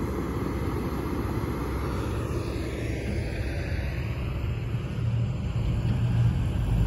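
Diesel engines of heavy earthmoving machines, an excavator and a loaded dump truck, running steadily as a low rumble that grows louder over the last two seconds.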